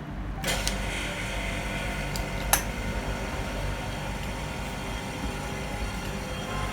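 OCA vacuum laminator running through a lamination cycle: a steady mechanical hum, with a hiss coming in about half a second in and one sharp click about two and a half seconds in.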